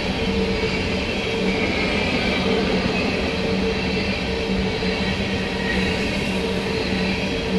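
BNSF coal train rolling past, a steady, unbroken rumble of steel wheels on rail with a low hum running through it.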